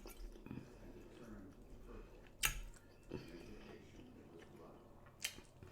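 A person with no teeth chewing food with her gums: soft, wet mouth sounds, broken by two sharp clicks about two and a half seconds and five seconds in.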